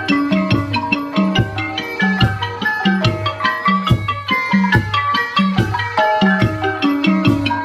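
Thai folk piphat ensemble playing traditional music: a melody on pitched percussion and wind over a steady beat of low drum strokes.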